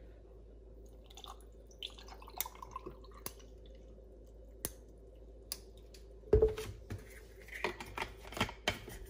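Orange juice poured from a plastic jug over ice into a glass mason jar, with small splashes and clicks and a faint rising tone as the jar fills. About six seconds in comes a loud thump as the jug is set down on the countertop, followed by a few clinks and clicks.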